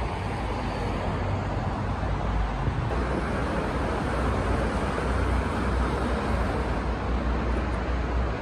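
Steady road traffic noise from a busy multi-lane road: cars running past in a continuous wash of sound with a deep low rumble.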